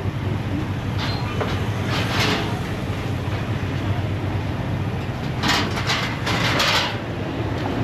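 Engines running with a steady low rumble, as traffic idles at a ferry crossing. Several louder bursts of hissing noise come through, two brief ones early and a longer cluster about two-thirds of the way through.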